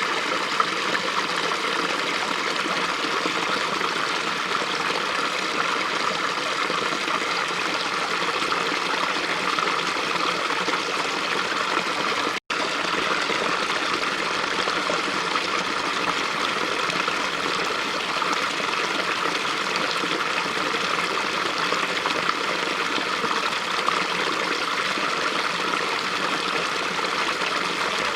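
A small stream of running water, a steady, even rush, cutting out for an instant about halfway through.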